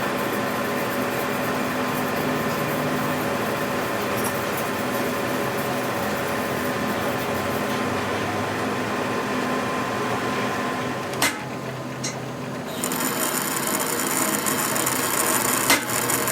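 A machine running steadily with a mechanical whir. Two sharp clicks come about eleven and twelve seconds in, after which a harsher high hiss joins the running sound.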